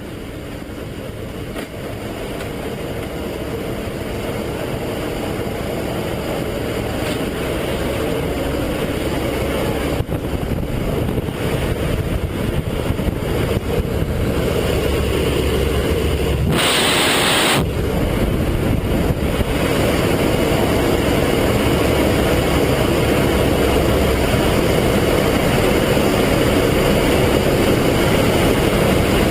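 Steady engine noise that grows gradually louder over the first twenty seconds or so, then holds. A short, loud burst of noise comes about seventeen seconds in.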